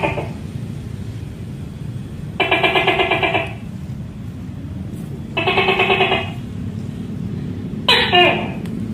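Tokay gecko calling. There are two fast, rattling calls about a second long and three seconds apart, then a shorter call near the end with a falling pitch, all over a steady low hum.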